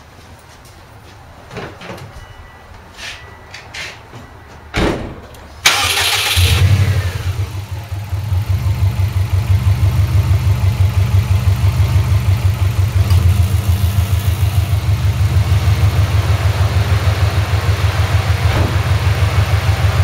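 A few light knocks, then a little over five seconds in a car engine cranks briefly and starts, running fast at first before settling into a steady idle.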